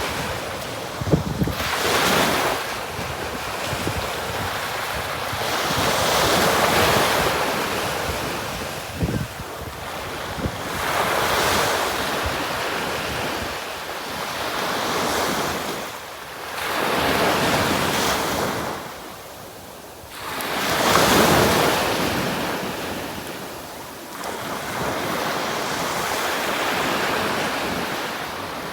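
Ocean surf on a beach: waves breaking one after another every few seconds, each swelling up and washing away.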